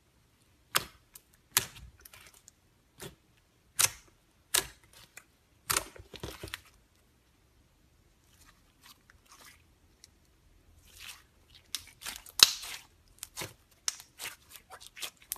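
Glitter slime being pressed, stretched and squeezed by hand, giving sharp sticky pops and clicks about a second apart. After a quieter stretch of faint crackling midway, a denser run of crackling pops follows near the end.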